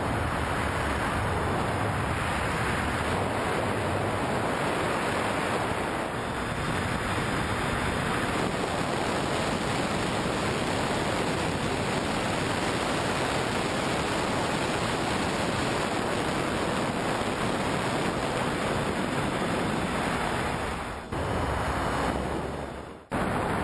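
Steady rushing wind noise from air streaming over a camera mounted on a model plane in flight. The level dips briefly twice near the end.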